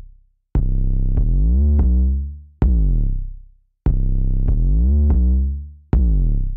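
Electronic intro music: deep bass and synth notes struck with sharp hits, their pitch sliding downward, in short phrases that break off and start again about every two seconds.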